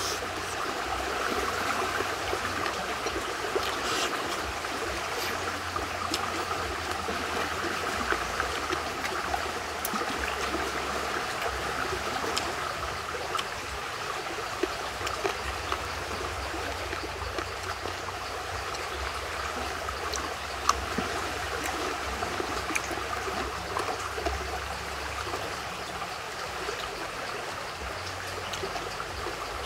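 Stream water flowing and trickling steadily, with a few isolated sharp clicks.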